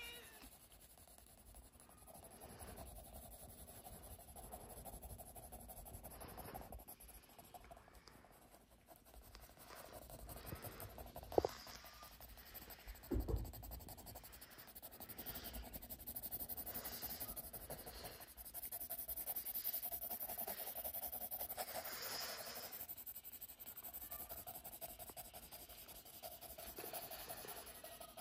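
Graphite pencil scratching and shading on paper in steady strokes, louder in the second half. A short sharp click sounds about eleven seconds in and a dull thump about two seconds later.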